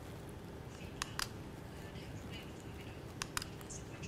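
Two pairs of quick small clicks over quiet room tone, one pair about a second in and another after about three seconds: a handheld presentation remote's button being pressed while the slides fail to advance.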